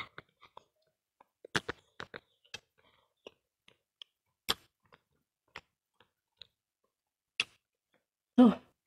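Sparse sharp clicks and wet smacks of eating chewy cilok (tapioca balls), mixed with light taps of a spoon and skewer at the glass sauce bowl. A brief voiced sound comes near the end.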